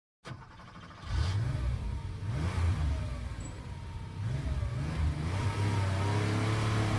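Car engine sound effect: revving up and down a few times, then settling into a steady drone about five seconds in.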